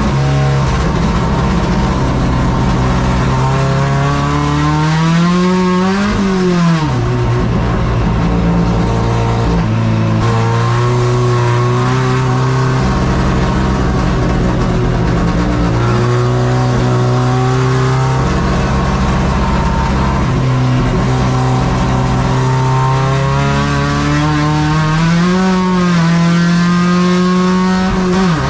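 Onboard sound of a carbureted Chevrolet Caravan four-cylinder race engine at racing speed. The revs climb, drop sharply about six seconds in, hold fairly steady for a long stretch, then climb and drop again near the end, as at gear changes or lifting for corners.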